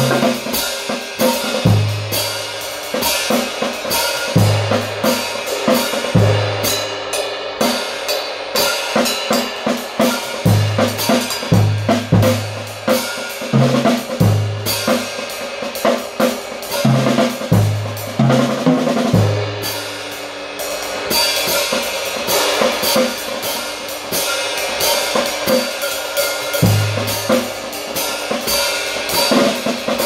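Drum kit played with sticks, Kamin cymbals ringing in a continuous wash over snare strikes and irregular bass-drum hits. The cymbal wash grows denser about two-thirds of the way in.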